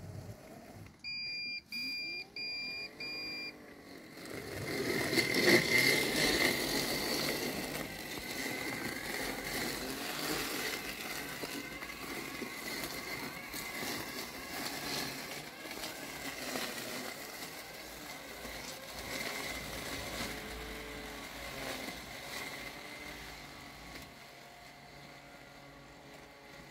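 Landxcape LX790 robotic lawn mower gives four short beeps, then its brushless blade motor spins up and it runs steadily, cutting through tall wet weeds as it drives.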